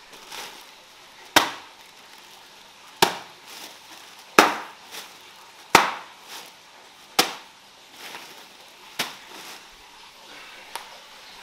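A plastic bag of ice cubes slammed down on a stone floor seven times, about every one and a half seconds, to break up the frozen-together cubes. Each slam is a sharp impact with a short rattle of cubes after it, and the last one is lighter.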